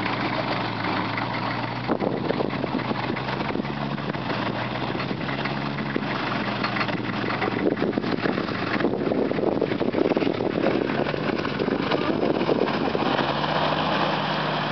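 Land Rover Defender engines running as the off-roaders drive through muddy water, the engine note steady with louder, rougher noise in the middle. Near the end a second engine tone, higher in pitch, comes in as another Defender wades in close by.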